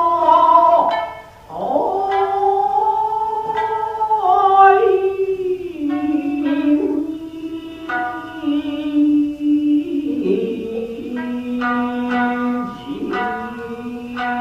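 Japanese classical dance music: a male singer draws out long, slowly sliding notes to shamisen accompaniment. Plucked shamisen notes become more frequent and rhythmic in the second half.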